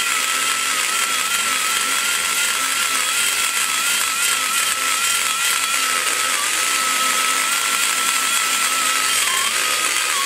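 Die grinder running at a steady high whine, a large carbide burr hogging metal out of the exhaust port of an aluminum LT-1 cylinder head. The pitch sags briefly under load about six and nine seconds in.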